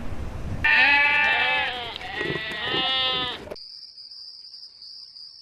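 Goat bleating in one long, wavering call lasting about three seconds, followed by a steady high-pitched buzz.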